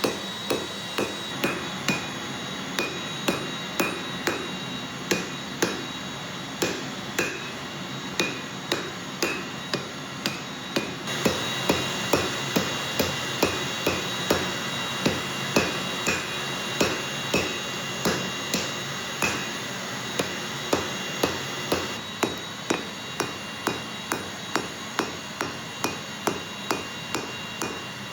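Hammer blows on steel in a steady, regular rhythm, from forging the spring-steel Damascus billet. A steady hum with a high whine runs underneath and grows louder for a stretch in the middle.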